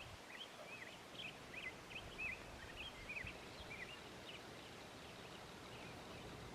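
Faint, quick, high-pitched chirping calls from an unseen animal, a few a second over low wind noise, dying away about four seconds in.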